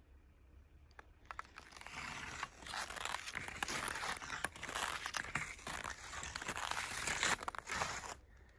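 Footsteps crunching on cold, dry snow: a dense run of crisp crunches and scrapes that starts about a second in and stops abruptly near the end.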